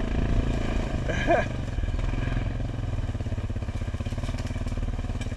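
ATV engine running steadily at low speed, with a rapid, even pulsing.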